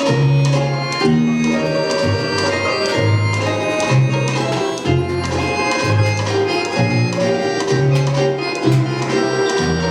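Instrumental music with a steady beat and a bass line that moves from note to note.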